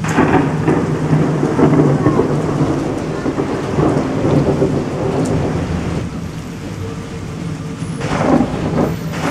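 Thunder and rain sound effect added by a phone video app. A thunderclap breaks in sharply at the start and rumbles on for several seconds over steady rain. A second crack comes about eight seconds in, all over a steady low hum.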